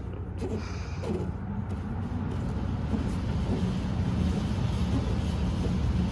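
Low, steady rumble of a motor vehicle, growing louder from about two seconds in.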